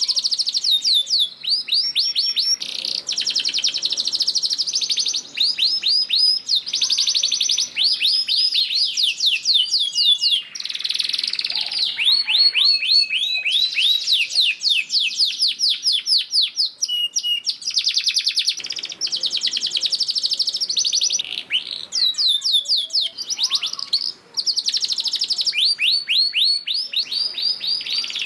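Domestic canary singing a long, loud song of fast trills and rolls, each trill a rapid run of repeated falling notes, phrase after phrase with hardly a break.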